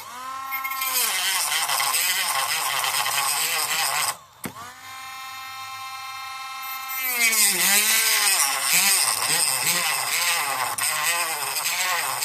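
Dremel rotary tool with a small cut-off wheel cutting through a hard plastic gear knob: a high motor whine that sags in pitch as the wheel bites. It cuts out briefly about four seconds in, restarts and runs steady, then wavers and dips again under load from about seven seconds on.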